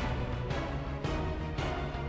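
Background theme music with a steady beat, about two beats a second.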